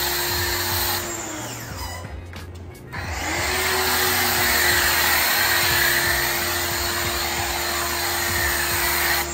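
Electric pressure washer spraying soap through a foam cannon: the motor whines as it runs and the spray hisses. It winds down and stops a little over a second in, starts up again with a rising whine about three seconds in, and winds down near the end as the trigger is let go.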